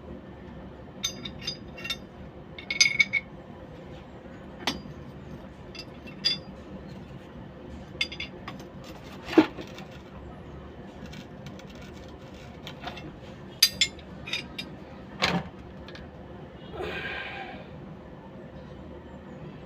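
Scattered light clinks and taps of small hard objects being handled, a dozen or so separate strikes with a short scrape near the end, over a steady low hum.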